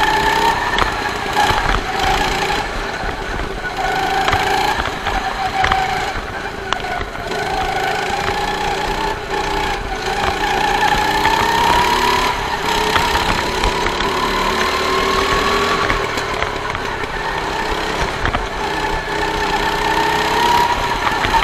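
Go-kart's small single-cylinder engine running hard on a lap, its pitch dropping as the kart slows for corners and climbing again on the straights, with a long slow rise through the middle.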